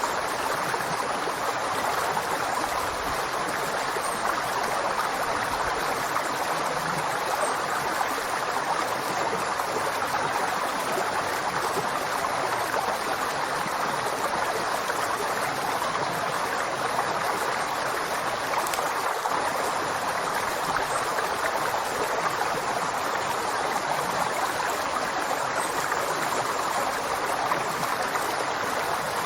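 River water flowing steadily over rocks, an even rushing with no breaks or changes.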